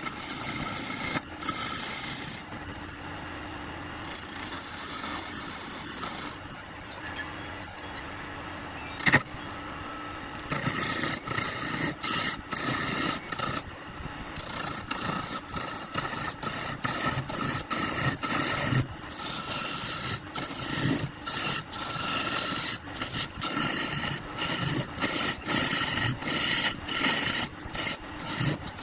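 Wood lathe running while a tool scrapes against the spinning wood, a steady rasping. There is a single sharp knock about nine seconds in. After that the scraping grows louder and comes in quick repeated strokes with short gaps between them.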